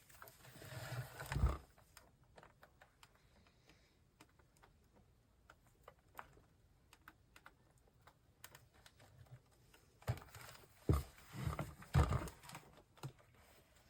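Light clicks and knocks of a plastic monitor housing being handled and turned over. There is a short rustling stretch at the start, sparse faint ticks through the middle, and a cluster of sharper knocks near the end.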